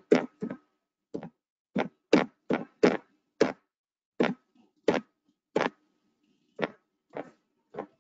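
A computer keyboard key pressed about fourteen times at an uneven pace, each press a sharp thunk, stepping through slides one at a time.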